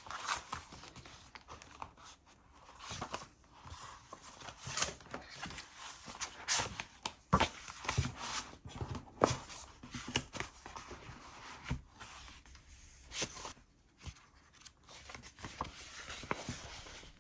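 Hands handling a leather notebook cover and its paper inserts: irregular rustling with soft taps and clicks.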